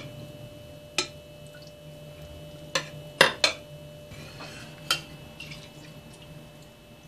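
Metal ladle and pot clinking against each other and the glass baking dish while cooled sugar syrup is poured over a cake: about six sharp clinks in the first five seconds, over a faint steady hum.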